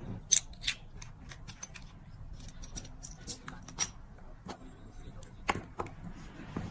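Light, irregular clicks and taps of small metal nail-art tools, such as tweezers, picking up and setting rhinestones and pearls on a press-on nail tip: about a dozen sharp ticks, the loudest a third of a second in.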